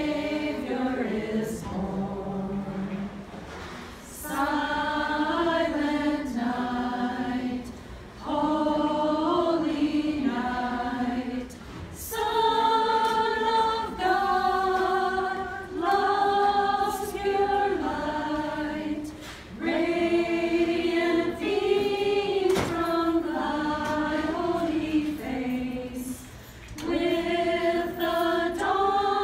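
A small group of women singing a Christmas carol unaccompanied, in phrases with short breaks between them.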